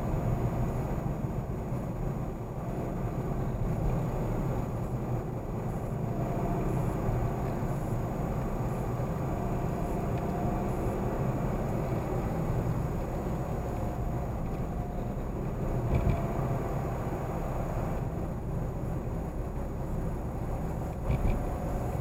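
Car driving at steady speed, heard inside the cabin: steady road and engine noise with a faint wavering engine tone. Two brief knocks come through, one about two-thirds of the way in and one near the end.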